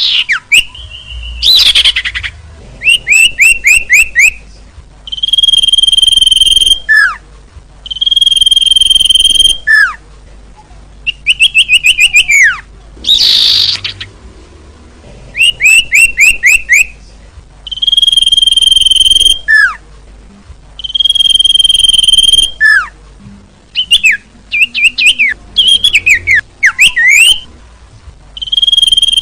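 Loud looped bird-lure call for small songbirds. It repeats a cycle of quick rising chirps, a long steady high whistle of about a second and a half, and a short falling note. Two short hissy chirrs come near the start and about halfway through.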